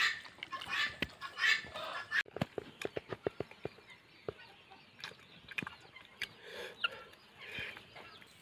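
Domestic chickens clucking, with a run of quick sharp clicks a little over two seconds in.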